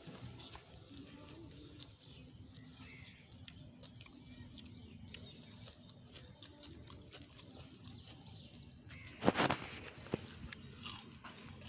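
Steady high-pitched chirring of insects, with a few faint clicks; about nine seconds in, a brief loud burst of noise cuts across it.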